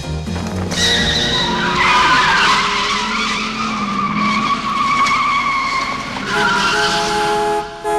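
Car tyres squealing in a long, wavering high screech, followed by a car horn sounding steadily from about six seconds in, with a brief break near the end.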